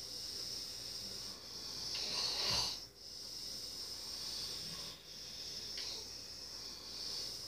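A sleeping person snoring in slow breath cycles, with one louder snore about two and a half seconds in.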